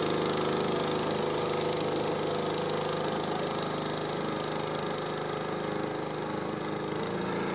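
Motor boat's engine running steadily.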